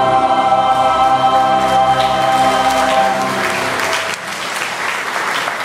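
Church choir holding the final chord of a hymn, which ends about four seconds in while applause rises and takes over.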